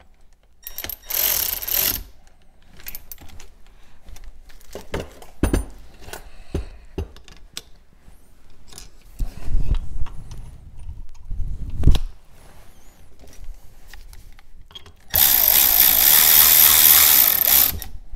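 Cordless power driver running the end-cap bolts of an electric dirt bike motor: a short run about a second in and a longer one of about three seconds near the end. Clicks and knocks from handling the bolts and the metal motor housing fall between the two runs.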